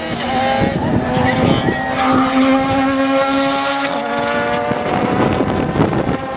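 Radical SR3 RS racing cars' Suzuki-based four-cylinder engines running at high revs as the cars pass at speed, a steady high engine note that lifts slightly midway and fades about four and a half seconds in.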